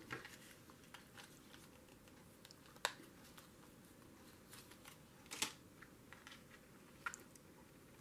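Mostly quiet room with a few light clicks and taps of craft materials being handled on a tabletop, the clearest about three seconds in and another about five and a half seconds in.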